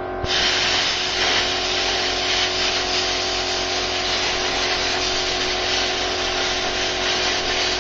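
Air plasma cutter (CT312 3-in-1 inverter) cutting through a steel circular saw blade: the arc and compressed air make a steady, loud hiss that starts a moment in and runs on. Under it is the steady drone of a generator.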